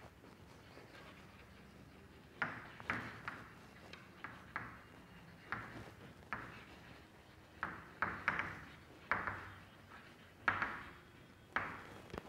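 Chalk tapping and scratching on a chalkboard as words are written by hand. After about two seconds of quiet comes an uneven string of short, sharp taps and scrapes, one for each letter stroke.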